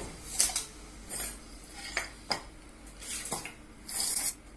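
Hand tools being handled on a tiled floor: a handful of separate metal clinks and knocks at uneven intervals, with a short rasping scrape about four seconds in.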